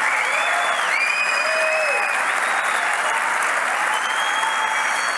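A large audience applauding steadily throughout, a dense even clapping with a few faint high calls or whistles drifting over it.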